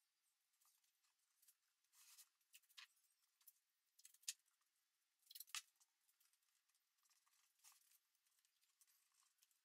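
Blue painter's tape being pulled off the roll and torn, faint, in several short rips a second or so apart.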